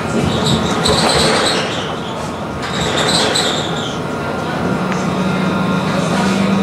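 Montpellier line 1 tram running on its rails, with a high wheel squeal over the first few seconds that fades out. A steady low hum starts about five seconds in.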